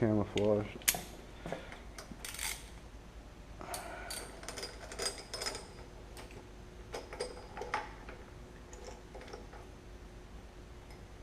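Metal hand tools clicking and clinking as they are handled on an engine: scattered sharp clicks, with a short metallic ring about four to five seconds in.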